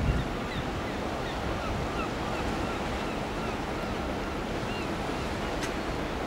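Steady rush of water and waves, with wind buffeting the microphone. Faint short high chirps come and go in the background.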